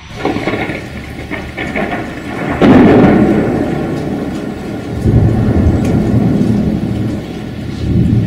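Thunder over steady rain: crackling at first, then a sudden loud clap about two and a half seconds in that rolls into a long rumble, with further swells of rumbling later.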